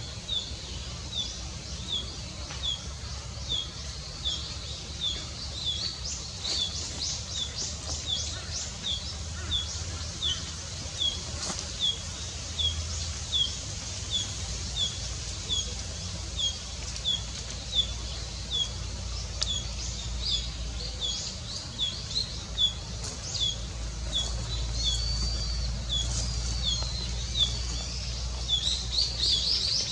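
Small birds singing. One bird repeats a short, high, down-hooked chirp at an even pace, about three every two seconds, while other birds add quicker, higher runs of notes now and then, busiest near the end. A faint low rumble lies underneath.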